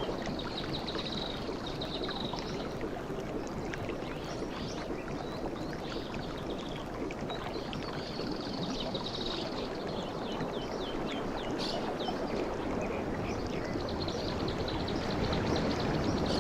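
Sea waves washing ashore in a steady rush that builds a little toward the end, with birds chirping and warbling over it.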